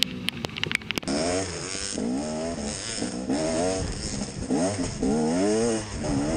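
KTM 250 XC two-stroke single-cylinder engine revving up and down over and over as the bike is ridden, heard from a helmet-mounted camera with wind noise over it. The first second holds a run of sharp clicks and taps.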